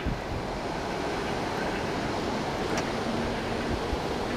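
Steady rushing noise of wind on the microphone over the low rumble of a departing passenger train.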